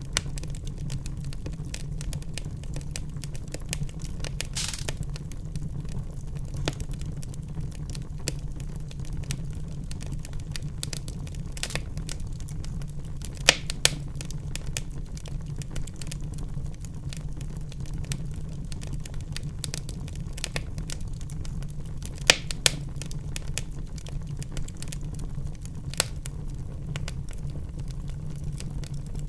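Wood fire in a fireplace crackling steadily over a low rumble, with a few louder sharp pops, one about midway and two in quick succession about three-quarters through.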